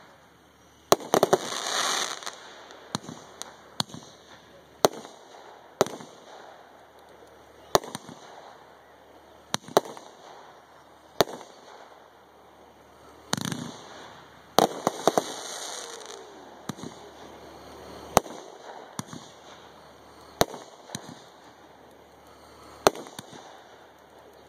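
Aerial firework shells fired from mortars bursting: a string of sharp bangs every second or two, with two stretches of dense crackling, one about two seconds in and one around fifteen seconds in.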